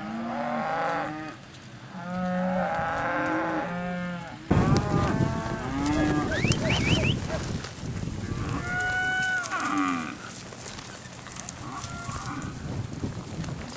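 A herd of cattle mooing, with several long calls overlapping one another. A rougher rustling noise joins about four and a half seconds in.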